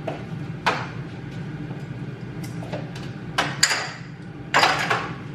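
Kitchen clatter: several knocks and clinks of dishes and containers being handled and set down, a couple with a short glassy ring, over the steady hum of an air fryer preheating.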